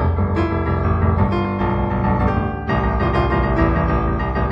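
Solo piano music, improvised, with chords and notes struck every second or so and left to ring.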